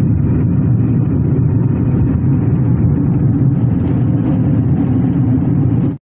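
Steady low engine and road rumble heard inside the cabin of a Mahindra XUV300 driving on a highway. It cuts off abruptly at the end.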